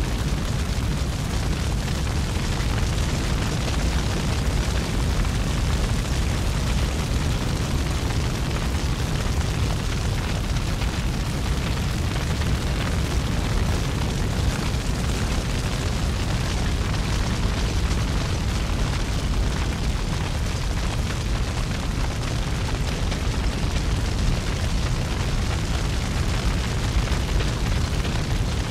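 Steady, deep rumbling roar with a hiss over it, the sound of a large wildfire burning.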